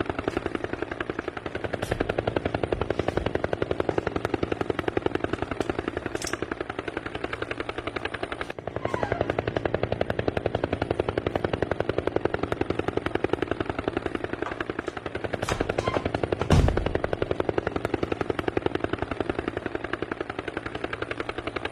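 A rapid, even, machine-like pulsing rattle that runs steadily throughout, with a brief low thump about sixteen seconds in.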